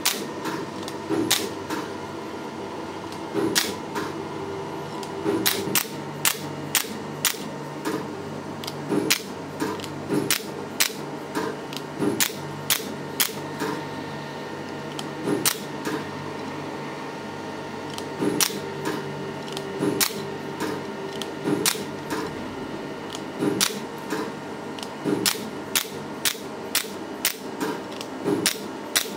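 Candela GentleMAX Pro hair-removal laser firing pulse after pulse as the handpiece is stepped across the face, each pulse a sharp snap, about one to two a second with short pauses, over the steady hum of the laser unit.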